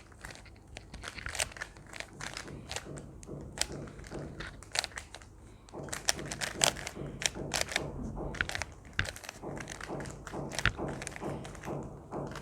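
Rubik's Cubes being twisted quickly by hand: rapid, irregular clicks and clacks of the plastic layers turning, getting busier about halfway through.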